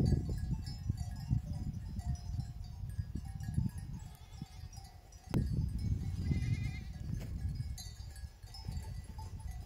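A flock of sheep and goats bleating now and then over a low, uneven rumble.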